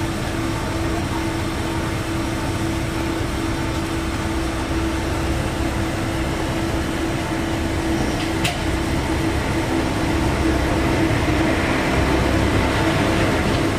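Isumi Railway diesel railcar's engine running, a steady drone with a low hum that grows a little louder over the last few seconds. A single sharp click about eight seconds in.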